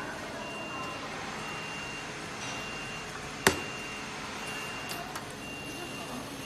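Garment-workshop noise: a steady mechanical hum with a high electronic beep repeating about once a second, and one sharp click about halfway through.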